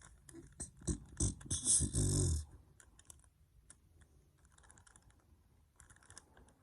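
Plastic Rubik's Cube being twisted by hand: a quick run of clicks and clatter about a second in, then fainter scattered clicks.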